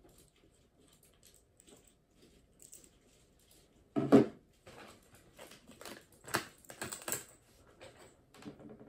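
Hand handling a small electronic device on a desk: faint clicks at first, a loud knock about four seconds in, then a string of lighter clicks and taps.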